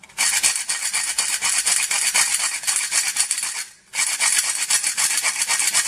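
Nutmeg being added over a pan of béchamel sauce: rapid, rhythmic scratchy strokes, with a short break a little past the middle.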